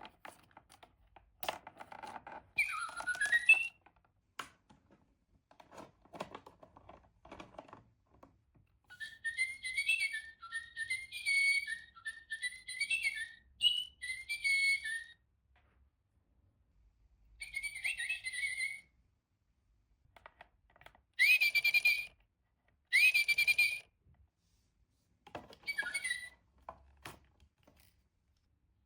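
Electronic toy bird chirping and tweeting in several short warbling bursts. Handling clicks and rustles come first.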